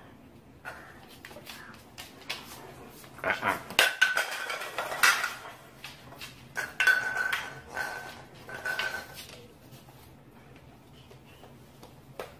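Bursts of clattering and knocking of hard objects, loudest between about three and nine seconds in, with a few short high steady tones among them.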